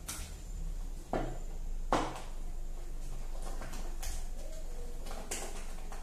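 A spatula stirring whipped cream that is being coloured red in a small black jug, with a few sharp scrapes and knocks against the jug, the loudest about two seconds in.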